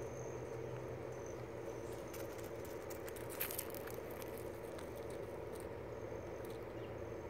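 Quiet outdoor ambience: a steady low hum, a faint high insect trill that comes and goes, and a few soft ticks about two to three seconds in. No barking.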